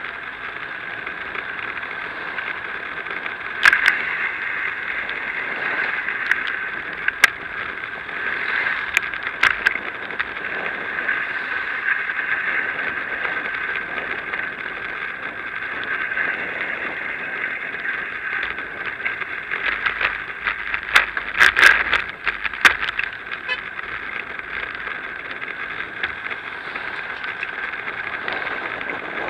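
Riding noise from a bicycle on the move, heard through an action camera's microphone: a steady rushing hum with occasional sharp knocks and rattles, a cluster of them about three quarters of the way through.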